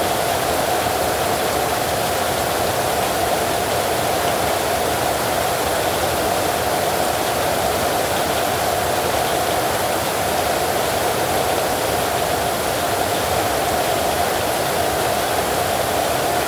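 Heavy rain falling steadily, an even, unbroken hiss with no thunder claps.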